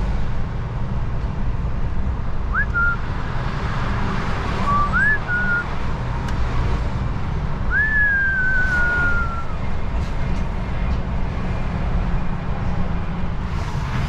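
A person whistling three short notes over the steady low rumble of a truck's engine and road noise in the cab; the first two rise quickly, and the third, about eight seconds in, is longer and slides down in pitch.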